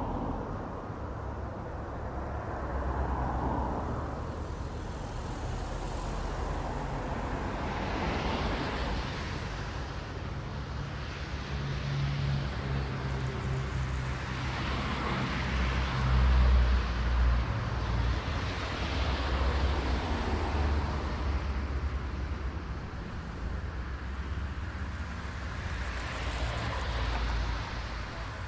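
Road traffic: cars passing one after another, each pass swelling and fading over a few seconds, with a low rumble of engines and tyres underneath.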